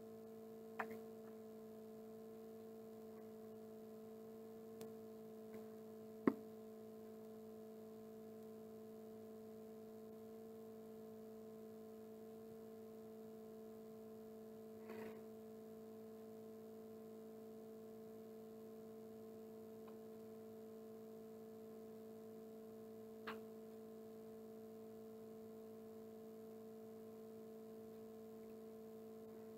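Steady electrical hum in a quiet room, with a few faint clicks, the sharpest about six seconds in.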